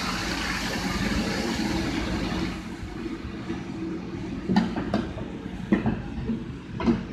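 Tomato puree poured from a large aluminium pot into hot spiced oil, hissing and sizzling for the first two and a half seconds over a steady low rumble. Then a few sharp metal knocks as the tipped pot and ladle strike the rim of the cooking pot.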